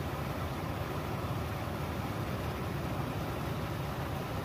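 Swift river current rushing through a small rapid: a steady, unbroken rush of white water.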